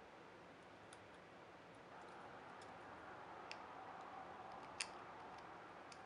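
Faint scattered clicks of a small precision screwdriver working the side mounting screws out of a laptop hard drive, metal tip ticking against the screw heads; three sharp ticks, the loudest about five seconds in, over quiet room hiss.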